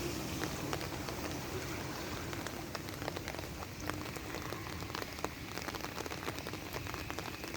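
Rain falling steadily on hard surfaces: a constant hiss dotted with many separate drops tapping.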